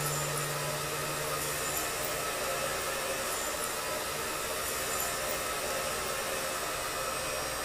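A steady, even rushing noise with no break, over a low hum that fades out in the first two seconds.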